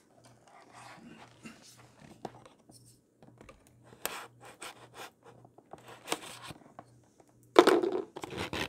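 A knife slitting the tape seals on a cardboard product box, with scratching and tearing sounds as the box is worked open and handled. A louder bump of the box comes near the end.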